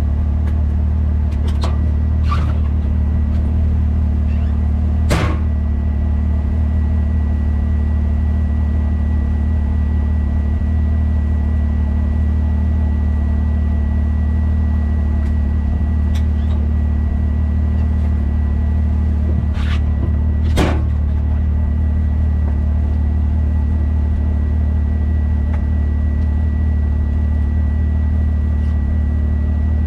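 Can-Am Maverick X3 Turbo RR's turbocharged three-cylinder engine idling at a steady speed, with a thin steady whine above the engine note and a few light clicks.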